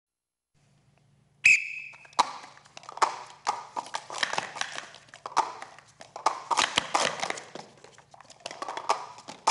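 After a second and a half of silence, a short high tone, then the rapid clacking of plastic sport-stacking cups being stacked up and brought down on a table, a fast run of sharp clicks lasting about seven seconds.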